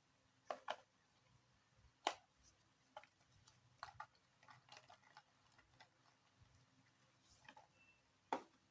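Faint, scattered clicks and taps at irregular intervals, sharpest about two seconds in and near the end, from a smartphone and its packaging being handled during unboxing.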